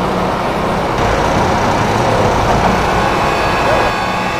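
Engine of a heavy tracked rocket-launcher vehicle running steadily, a loud, even rumble with a low hum.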